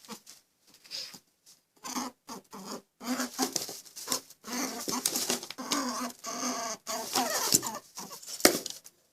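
An animal making a rapid run of short, uneven calls mixed with scratchy, scuffling noises.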